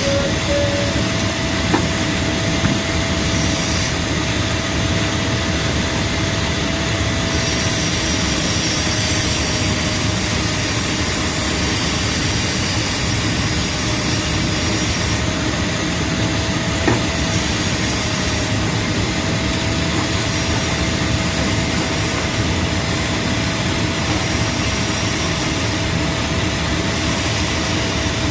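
S6E diesel engine running steadily, with a thin steady whine above the engine noise.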